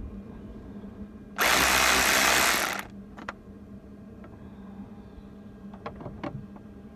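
A power driver runs in one steady burst of about a second and a half, undoing a bolt, followed by a few light metallic clicks.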